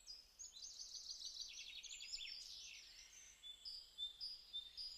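Faint birdsong: a fast trill of rapid repeated high notes for about two seconds, then a few short separate whistled notes.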